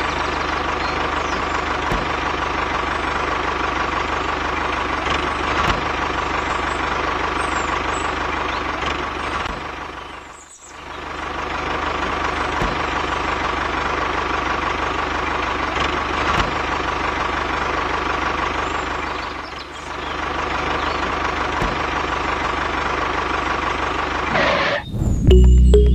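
Tractor engine running steadily, dipping briefly about ten and twenty seconds in.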